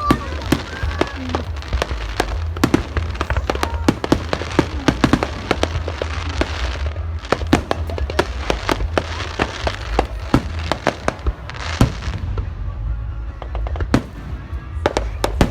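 Fireworks and firecrackers going off, a rapid run of sharp pops and crackles that thins out about twelve seconds in before more pops near the end, over a steady low rumble.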